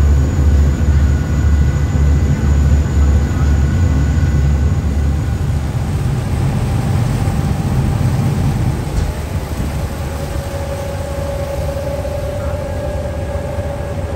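Thames Clipper riverboat's engines running, heard on board as a steady heavy low rumble that eases off about halfway through.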